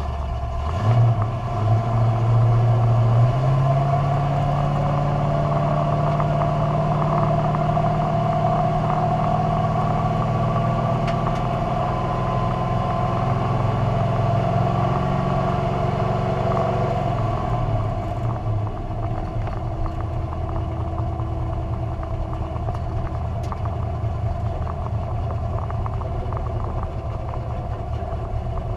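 Carbureted drag car engine launching from idle to full throttle about a second in, then holding high, steady revs for some fourteen seconds, the transmission not shifting into third gear. The throttle lifts about seventeen seconds in and the engine falls back to a lower, steady run.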